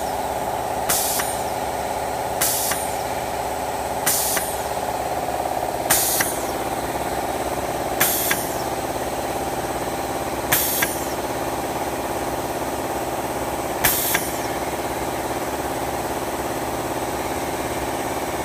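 Air-driven hydraulic booster pump on a band saw's blade-tensioning system building pressure: a sharp hiss of air with each stroke over a steady hum. The strokes come further and further apart as the pressure rises, the last one about fourteen seconds in, when the pump reaches its set pressure and stops on its own.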